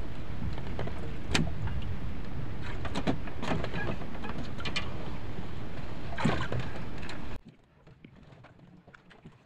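Steady rushing wind noise on the microphone with a few light knocks, cutting off abruptly about seven seconds in and leaving only faint ticks.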